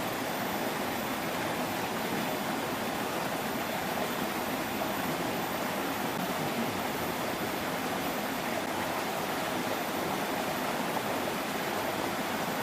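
Steady rushing of flowing stream water, an even, unbroken wash of sound.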